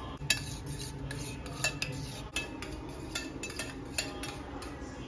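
A metal spoon beating raw egg in a small stainless steel bowl, clicking irregularly against the bowl's side, with the strongest click about a third of a second in.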